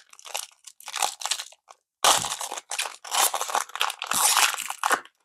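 Wrapper of a trading-card pack crinkling as it is opened by hand, in irregular bursts of crackle. The loudest bursts come about two seconds in and again from about three to five seconds.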